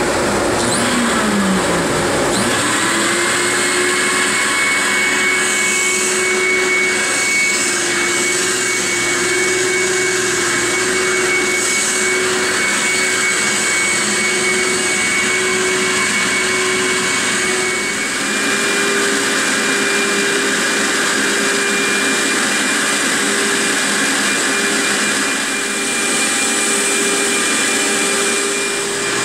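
Two-motor BlackBoxVac Hurricane vacuum hold-down pump running with a steady whine as it holds a plywood sheet down on the CNC table. About two seconds in, a second tone spins up and settles as the second motor comes on. Its pitch steps slightly higher past the halfway point.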